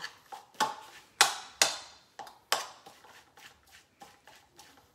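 A utensil clinking and scraping against a bowl as coleslaw is stirred: a run of sharp taps, the loudest just over a second in, thinning to faint ticks in the second half.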